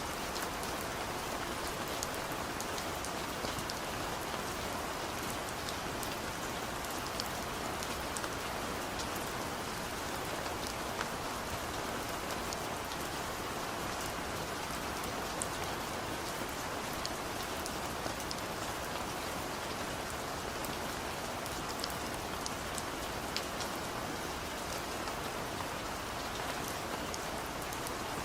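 Steady rain falling: an even hiss of rainfall with scattered sharper drop ticks, constant in strength throughout.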